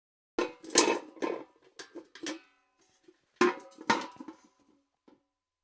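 Steel bucket clanking: a quick run of about six knocks and rattles with a ringing metallic tone, then, after a short pause, a second run of clanks that dies away.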